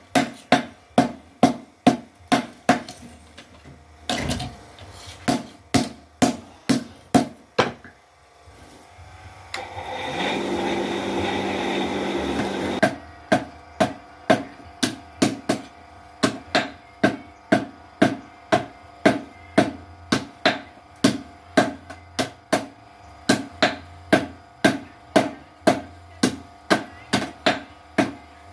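Blacksmith's mechanical power hammer striking in a steady rhythm of about two to three blows a second, pausing twice. A steady hum lasts about three seconds in the middle.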